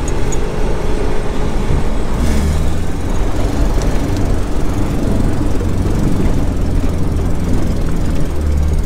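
A Toyota Hilux 4WD fording a waist-deep, flowing creek: the engine runs under load with a constant rush of water around the vehicle, the engine note swelling about two seconds in and again near the end.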